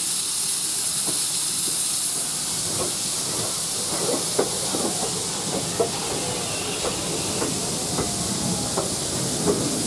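Steady hiss of steam from steam locomotives at a station. From about three seconds in, GWR 2-6-0 No. 9351 and its coaches roll slowly past, making irregular clanks and knocks from the wheels and running gear, with faint squeals.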